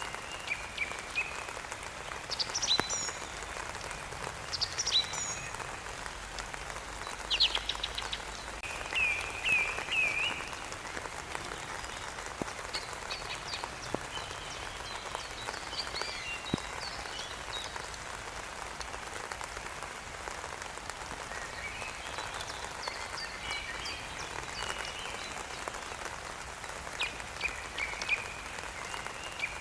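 Steady rain falling, with small birds chirping and trilling on and off over it, busiest about a third of the way in and again near the end.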